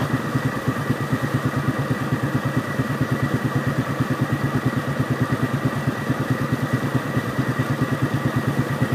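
Vehicle engine idling steadily, with an even, rapid pulse.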